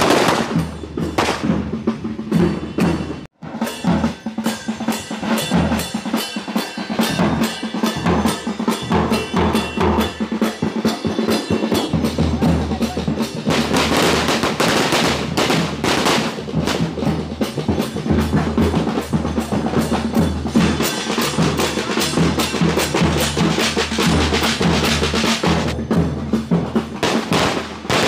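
A long string of firecrackers going off on a road: a fast, unbroken rattle of small bangs that cuts out for an instant about three seconds in, then carries on.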